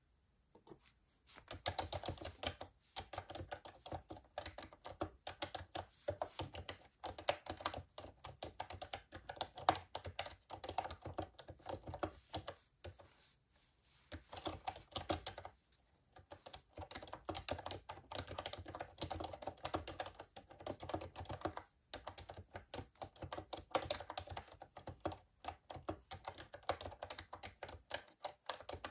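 Typing on a computer keyboard: fast runs of key clicks in bursts, beginning about a second and a half in, with a few short pauses along the way.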